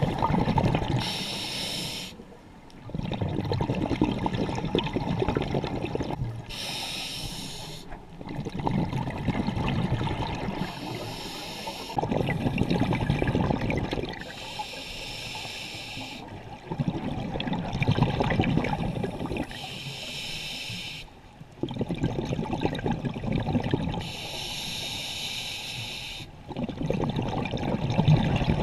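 Scuba regulator breathing underwater. Each inhale is a short hiss and each exhale is a longer rush of bubbling, for about six breaths roughly four to five seconds apart.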